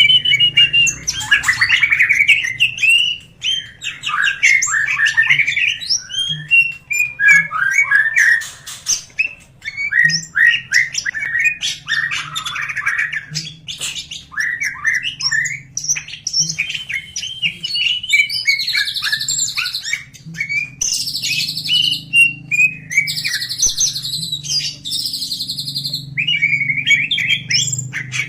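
Cucak hijau (leafbird) singing a fast, varied song of chirps, trills and whistled phrases. In the second half it adds repeated buzzy notes.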